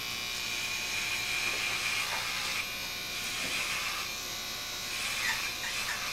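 Corded electric hair edger buzzing steadily with a high whine as it runs over a close-shaved scalp, trimming the last stubble.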